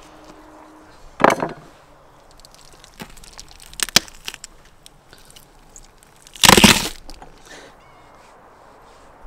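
Bison ribs being broken apart and cut with a knife: three loud cracks of bone, the last and loudest about two-thirds of the way through.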